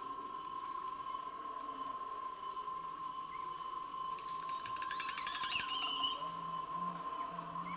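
Amazon rainforest soundscape: a steady, high insect drone over pulsing insect calls, with a short burst of chattering calls about halfway through and low repeated calls near the end.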